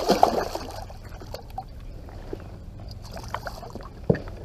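Water splashing and trickling at the side of a kayak, loudest in the first second. Scattered light knocks follow, with a sharper knock near the end.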